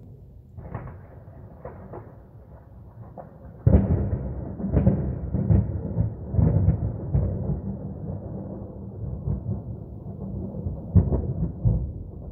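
Thunder: a low rumble, then a loud crack about three and a half seconds in that breaks into a long rolling rumble with repeated sharp peaks, and one more crack near the end.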